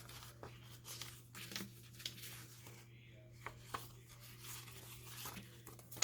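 Paper being handled: faint rustling and scattered light taps, over a steady low hum.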